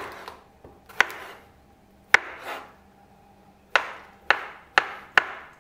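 Kitchen knife cutting through a thick king oyster mushroom stem and knocking down onto a wooden cutting board: about seven sharp chops, a second or so apart at first and quicker near the end.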